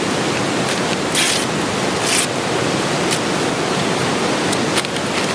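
Newspaper being crumpled and torn by hand: two short crackling rustles about one and two seconds in, then a few light clicks, over a steady rushing background noise.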